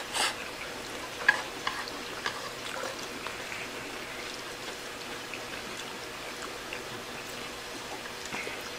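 Quiet eating sounds: a mouthful of yakisoba being chewed, with a few small clicks and taps scattered through, most of them in the first three seconds.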